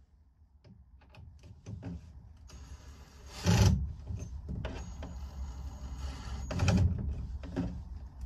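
Ryobi cordless drill turning a flexible shaft extender in two runs of a few seconds, driving screws into a TV wall mount. A heavy knock comes during each run.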